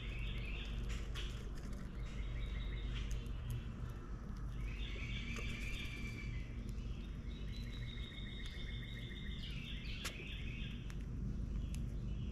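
Birds chirping in repeated trilled phrases of a second or two each, over a steady low outdoor rumble, with a few faint clicks.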